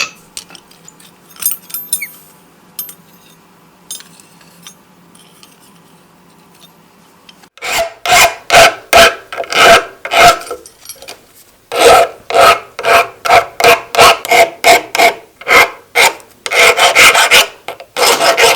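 A few faint clinks, then a rasp being worked over a small forged steel piece in quick, regular back-and-forth strokes, about two to three a second, with a short pause midway.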